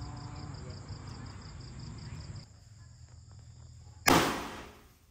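Crickets chirp in a fast, even pulse until the sound cuts off about two and a half seconds in. Near the end a handheld paper confetti firework goes off with one sharp, loud pop that dies away within about a second.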